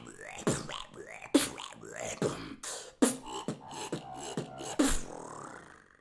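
Beatboxer performing a "demon bass" pattern: a growling bass voice that bends up and down in pitch, with sharp kick-drum hits about every 0.8 s. The sound fades out just before the end.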